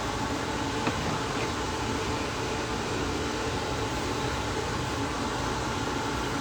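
Steady mechanical hum with hiss, like a fan or air-conditioning unit running, with one faint click about a second in.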